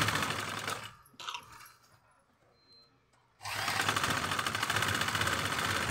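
Domestic sewing machine running at a fast, even stitch rate, sewing elastic into a waistband. It stops about a second in and starts running again after a pause of about two and a half seconds.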